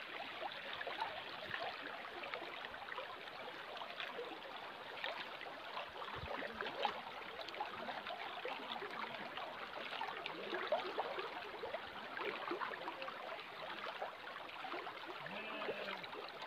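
Shallow stream running over rocks and stones, a steady rushing babble with many small splashes.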